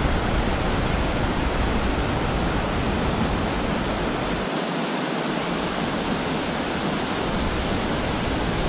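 Steady rush of river water pouring over a dam spillway, an even, unbroken noise.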